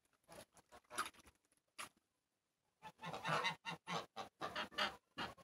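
Domestic geese honking, a quick run of calls from about three seconds in, after a few short taps.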